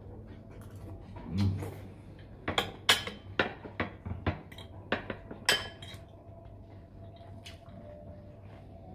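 Knife and fork clinking and scraping on china plates during a meal: a quick run of sharp clicks, some ringing briefly, through the middle few seconds, then only faint background.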